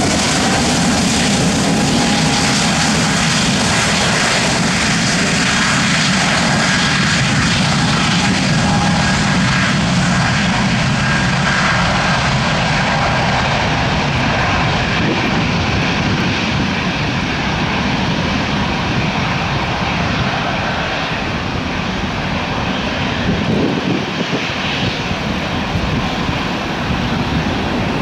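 Airbus A220-300's Pratt & Whitney PW1500G geared turbofan engines running at high thrust on the takeoff roll: a loud, steady jet roar with faint whining tones in it. The sharpest highs fade over the second half as the aircraft pulls away.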